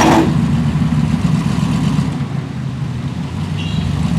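A tow truck's engine running steadily at low speed as it creeps forward, with a brief hiss right at the start.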